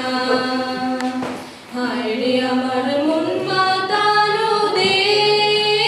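Two girls singing a duet into microphones, holding long notes, with a short breath pause about a second and a half in.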